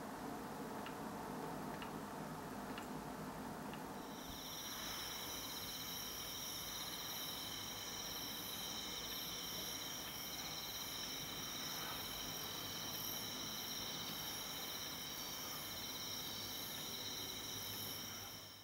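Crickets trilling steadily at night, several insects at different high pitches, starting about four seconds in and fading out at the end. Before that, faint regular ticks over a low steady hum.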